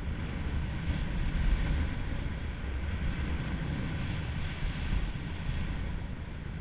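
Wind buffeting the microphone with the steady hiss of sliding over groomed snow during a fast downhill run on a ski slope.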